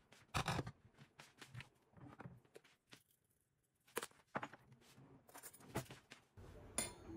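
Kitchen handling sounds: a short scrape about half a second in, then scattered clicks and knocks of cookware and utensils being moved about on the counter.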